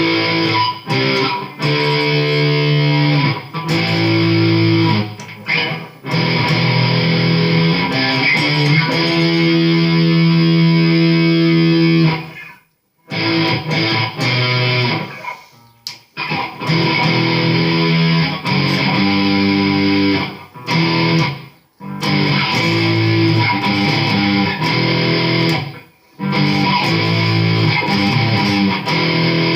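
Chibson Les Paul copy electric guitar with its stock pickups and new strings, played in phrases of held chords. The playing stops briefly about 13 seconds in and again a few times later.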